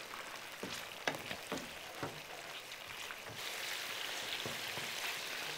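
Mutton pieces sizzling in hot oil in a wok as they are stirred with a wooden spatula, with a few soft scrapes and knocks of the spatula against the pan. The sizzling grows louder about three and a half seconds in.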